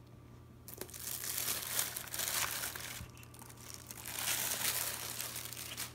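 Thin clear plastic bag crinkling as the kitchen scale wrapped in it is lifted from its box and handled, in two spells with a short lull near the middle, stopping abruptly near the end.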